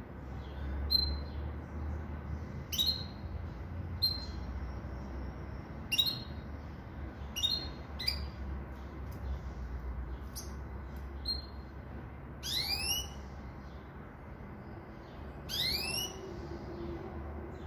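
Pintagol, a hybrid of a Venezuelan siskin and a Belgian canary, giving short sharp chirps every second or two, with two brief rapid twittering phrases near the end.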